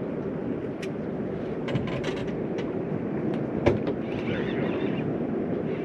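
Steady wind noise around a small drifting fishing boat, with a few sharp clicks from a conventional fishing reel being cranked to wind in line on a hooked fish. The loudest click comes about two-thirds of the way through.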